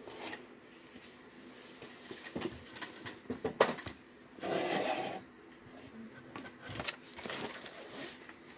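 Cardboard gift box and its paper contents being handled: scattered rustling, scraping and light knocks, with one sharp tap about three and a half seconds in and a longer burst of rustling just after it.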